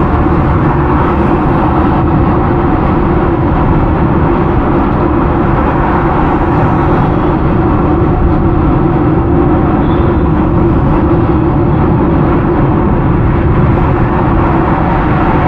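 Steady road noise of a car driving on a highway, heard from inside the cabin: a constant rumble of tyres and engine.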